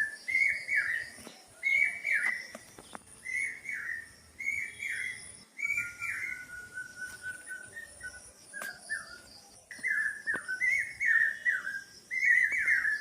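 Birdsong: a bird repeats short falling whistled notes in quick runs of two to four, with a fainter, higher chirping going on throughout.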